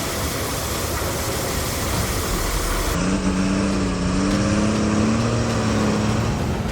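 A machine's engine running. For the first three seconds there is a dense noisy sound, then a sudden change about three seconds in to a steady engine note that rises slightly in pitch.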